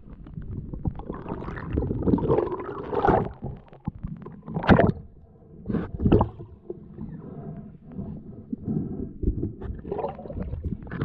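Underwater sound from a diver's camera as a speargun line is hauled in after a shot: muffled gurgling water and rubbing handling noise, with a few sharp knocks of gear against the camera housing about five and six seconds in and again near the end.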